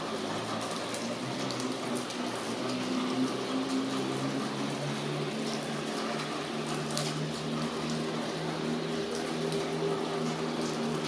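Steady rain with water running and splashing, over a low, slightly wavering hum.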